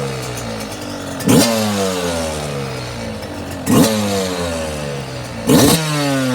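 2022 Yamaha YZ125 two-stroke single running through a new FMF Fatty expansion chamber and Shorty silencer, still cold. It is blipped three times, about two seconds apart, and after each blip the revs fall back toward idle.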